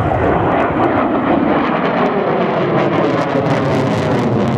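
Saab Viggen jet fighter flying overhead in a display: loud jet noise whose pitch slides down over the first couple of seconds, with a crackle coming in during the second half.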